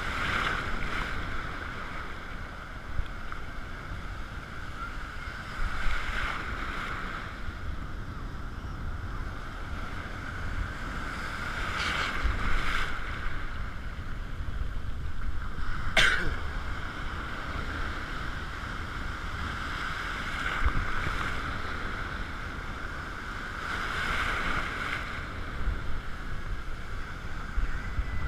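Breaking surf heard from right in the water: waves swell and wash through every few seconds over a steady low rumble, with one sharp click about sixteen seconds in.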